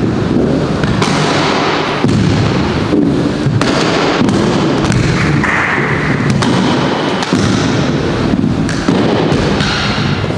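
Aggressive inline skate wheels rolling across a plywood mini ramp: a loud, continuous rolling noise with sharp knocks now and then as the skater rides back and forth.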